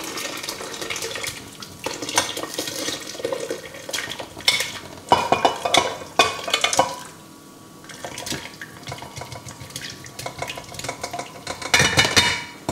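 A metal spoon scraping and knocking cooked butternut squash pieces out of a stainless steel saucepan into a glass blender jug, with broth pouring in at the start. There are irregular clinks and scrapes, and a louder clatter of the pan against the jug near the end.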